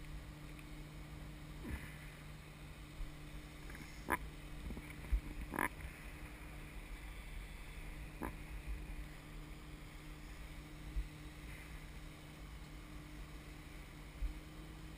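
Wind buffeting a camera microphone hung from a parasail harness, a steady low rumble under a faint even hum, with a few sharp clicks about four, five and a half and eight seconds in.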